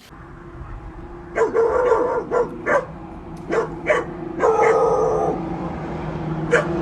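Australian Shepherd barking: a quick run of short, pitched barks starting about a second and a half in, with a longer drawn-out bark a little after the middle and one more bark near the end, over a steady low hum.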